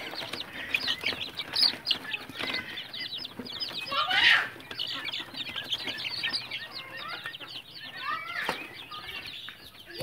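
A flock of local desi chickens in a coop, with a dense chorus of many short, high peeping calls. A louder squawk comes about four seconds in, and a sharp knock near the end.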